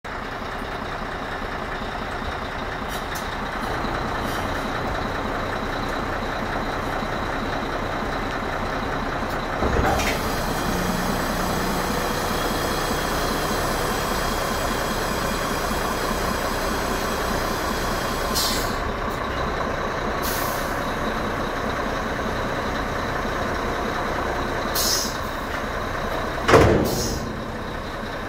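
Scania G 440 truck's 13-litre straight-six diesel running steadily, powering the Meiller tipper's hydraulics as the body tips to the side and the Bordmatik side board swings down and back. Several short hisses of compressed air and a few knocks sound over it, the loudest near the end.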